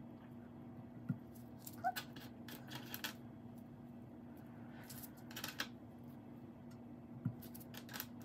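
Scattered light clicks and rustles from a gloved hand picking up small fire-glass stones and tapping them into wet epoxy on a wooden cutting board, over a faint steady hum.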